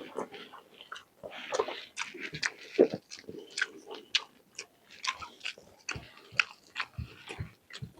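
A person chewing and biting food close to the microphone: a string of short, irregular mouth clicks and smacks.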